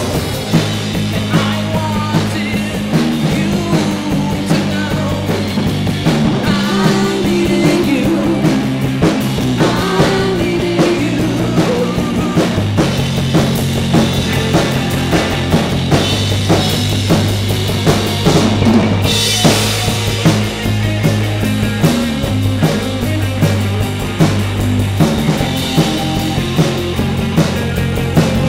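Indie rock band playing: a steady drum kit beat over bass notes, with electric guitar.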